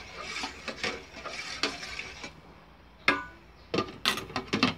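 A spoon stirring and scraping around a rice cooker's metal inner pot of thickening gelatin mixture. After a pause comes a sharp ringing clank as the glass lid goes onto the pot, then several clinks as a spoon is set down on a glass saucer near the end.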